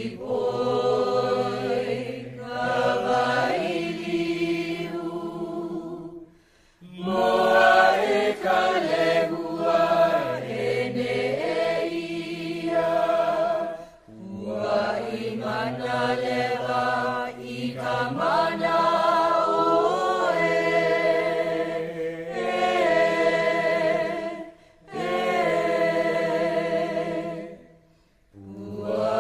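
A group of voices chanting a Hawaiian chant in unison, in long held phrases with brief pauses between them.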